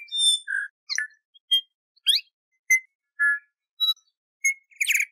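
New Zealand bellbird (korimako) singing: a string of short, clear whistled notes and chirps at varied pitches, some sliding upward, ending in a louder, denser burst.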